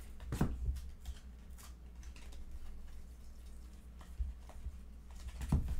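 Glossy Topps baseball trading cards being slid apart and flipped by hand, one at a time: faint swishes and clicks of card stock. Louder strokes come about half a second in and again near the end.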